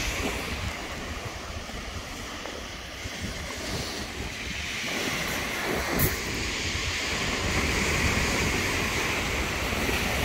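Waves breaking and washing on a shingle beach, with wind buffeting the microphone. There is one short knock about halfway through.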